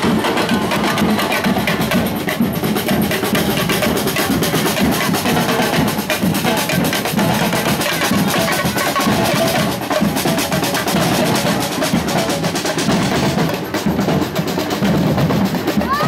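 Street carnival drum band (batucada) of large bass drums and snare drums playing a busy, continuous rhythm.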